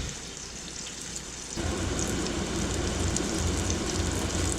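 Sauce bubbling and sizzling around chicken wings in a stovetop pan as it reduces toward a sticky glaze, a steady crackling hiss that jumps louder about a second and a half in.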